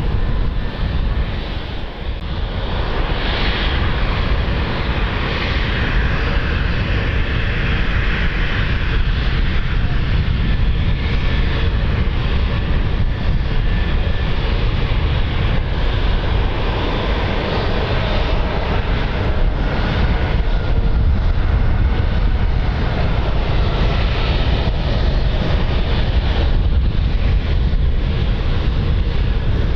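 Airliner engines running steadily at an airport, a continuous loud rumble with a fainter whine above it.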